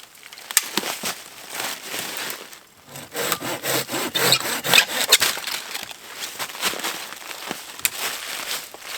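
Wood being sawn by hand: a series of uneven rasping saw strokes, thickest and loudest in the middle.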